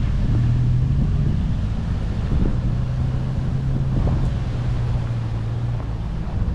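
Toyota LandCruiser Troop Carrier driving along a bush track: its engine drones at a steady pitch over a continuous low rumble, with a couple of faint knocks.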